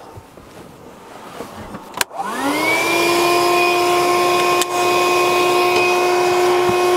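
Handheld vacuum cleaner switched on with a click about two seconds in. Its motor spins up quickly and settles into a steady whine over a rushing suction hiss.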